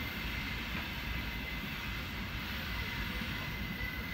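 Freight train rolling away into the distance: a steady, even rumble of wagons on the rails, with a faint thin high tone over it.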